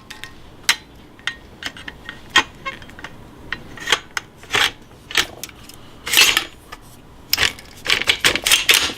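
Parts of an Emperor MX5 semi-automatic 12-gauge shotgun clicking and clacking as it is handled and fitted together. The sharp clicks come irregularly, with a few quick clusters in the second half.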